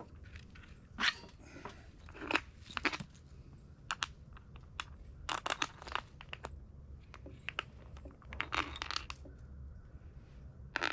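Small metal hardware, bolts and washers, clinking and rattling as it is handled: irregular sharp clicks with a few short rustles.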